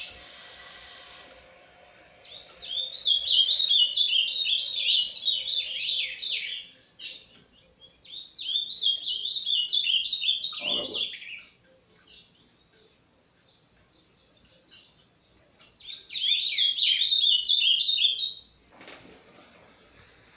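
Ultramarine grosbeak (azulão) singing: three bursts of rapid, high warbling notes, each a few seconds long. A dull knock comes near the end of the second burst.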